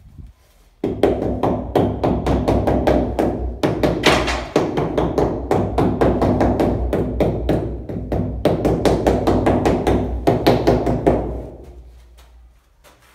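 White rubber mallet tapping stone-look ceramic wall tiles in quick succession, several taps a second, to bed them into the tile adhesive. The tapping starts about a second in and dies away near the end.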